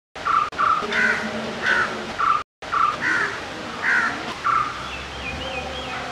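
Crows cawing repeatedly, short harsh calls coming every half second to a second, with a thin wavering bird whistle about five seconds in.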